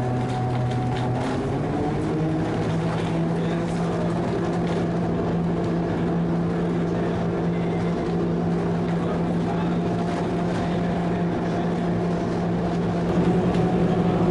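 Electric motor of the Granarolo rack railway car humming steadily, rising in pitch over the first couple of seconds as it picks up speed, then holding.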